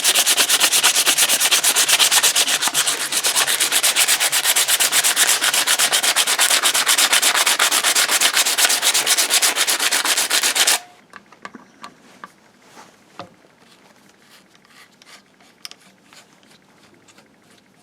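Old paint being sanded off a previously painted motorcycle part with 120-grit sandpaper: loud, rapid, continuous scratching that stops suddenly about eleven seconds in. Faint clicks and handling noises follow.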